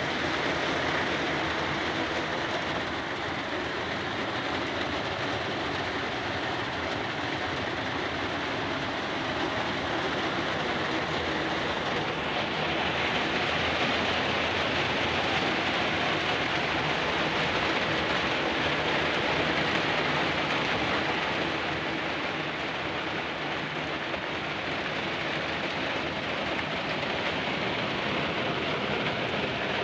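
Steady rain falling, a continuous hiss of drops, growing a little louder about twelve seconds in and easing again near twenty-two seconds.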